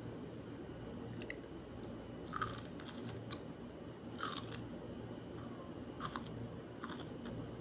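Close-up crunching bites and chewing of raw white onion, about five sharp crunches a second or two apart.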